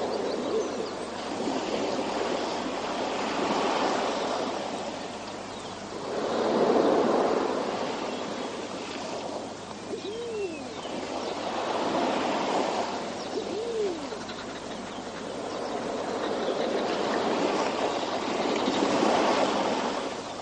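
Recorded forest soundscape: a rushing noise like surf that swells and fades every few seconds, with two short hooting bird calls, one about ten seconds in and another about three seconds later.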